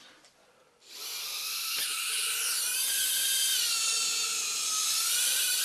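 Mini quadcopter's tiny electric motors and propellers starting suddenly about a second in, then a steady high-pitched whine that wavers up and down in pitch as it flies.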